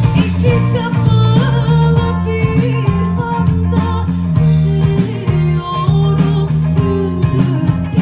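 Live band playing a rock song, with electric guitar, bass guitar and drum kit, and a woman singing into a microphone over them.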